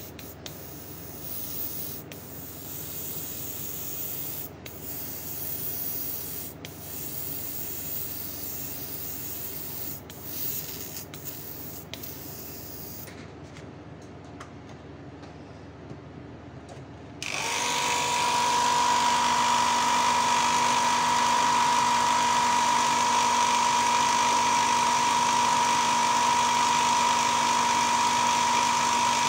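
Light clicks and handling noise, then about two-thirds of the way through a small electric motor switches on and runs steadily with a constant whine.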